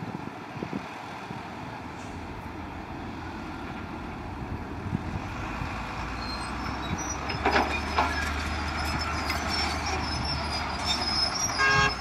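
Heavy earthmoving machine's diesel engine running with a steady low rumble that slowly grows louder, with metallic clanks and high squeals from about halfway through, and a short horn-like tone near the end.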